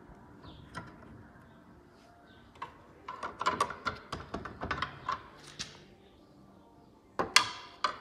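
Plastic clicking and rattling from a washing machine door's plastic frame being handled: a quick run of small clicks a few seconds in, and two sharp, louder clicks near the end.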